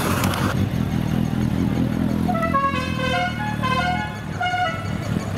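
A car engine running, and about two and a half seconds in a musical car horn plays a quick tune of short notes stepping up and down, with a brief second phrase near the end.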